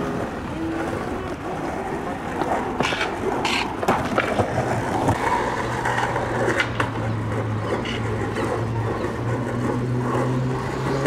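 Skateboard rolling over wooden boardwalk planks with a rough, continuous rumble, with several sharp clacks from the board being popped and landed. A low steady hum comes in about halfway through.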